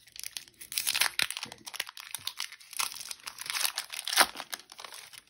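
Foil Pokémon TCG booster pack wrapper crinkling as it is handled and torn open, with a sharp crackle a little after four seconds in.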